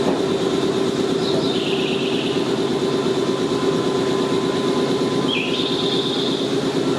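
Nankai Koya Line electric train running, heard from inside the car: steady rolling noise with a hum. High squeals from the wheels come and go twice, about a second and a half and five and a half seconds in.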